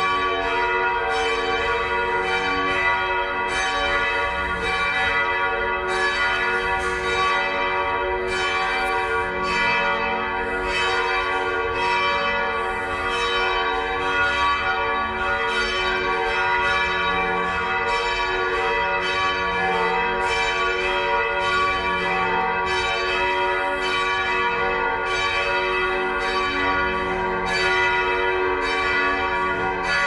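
The church's bells ringing in a continuous peal, heard from inside the church. Several bells of different pitch are struck in quick succession, about twice a second, and their notes ring on over one another.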